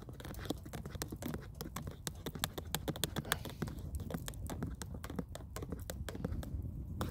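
Small metal spoon stirring a frothy latte in a plastic camping mug, with quick irregular ticks and clicks, several a second, as it knocks and scrapes around the inside of the cup.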